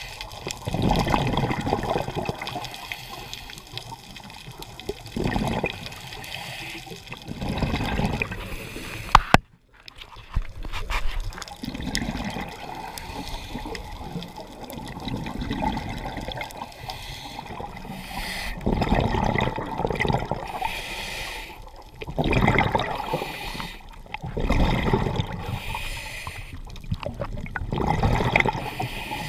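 Scuba regulator exhaust heard underwater: a rush of bubbles every two to three seconds as the diver breathes out, over a steady background hiss. There is a sharp click and a moment's silence about nine seconds in.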